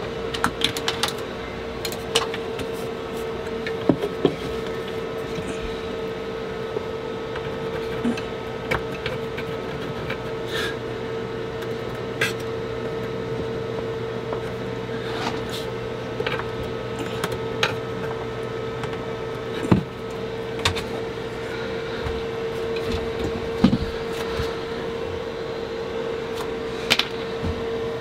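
Scattered light clicks, knocks and rubbing as equipment and cables are handled inside a wooden cabinet, over a steady electrical hum; a lower part of the hum drops away about two-thirds of the way through.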